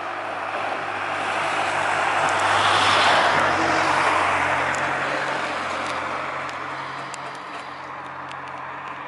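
A car passing close by: its tyre and engine noise swells to a peak about three seconds in, then fades away, over a steady low hum of traffic.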